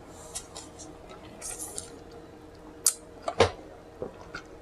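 Close-miked eating sounds: wet mouth clicks and smacking while chewing fast food, with a couple of sharper cracks near the end, the loudest about three and a half seconds in.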